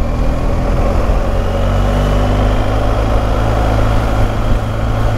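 Motorcycle engine running at low town speed, with road and wind noise. The engine note eases down slightly over the first couple of seconds, then holds steady.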